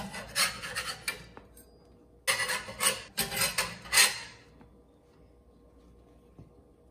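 Scraping on a cast iron griddle in two bursts of quick strokes. First a steel flat turner scrapes under toasted buns to lift them off; then, about two seconds in, the bare griddle is scrubbed with a brush, louder.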